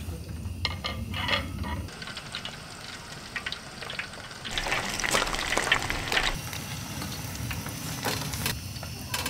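Dumplings deep-frying in hot oil in a small stainless steel mess tin with a wire basket: steady sizzling and bubbling, louder about halfway through, with a few light clicks of metal tongs against the tin.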